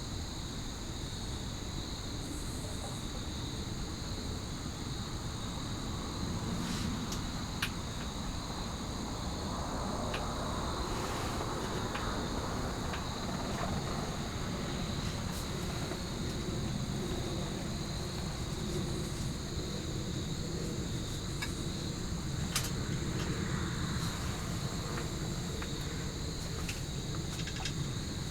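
Steady chorus of crickets trilling at several high pitches, over a low rumble, with a few small clicks.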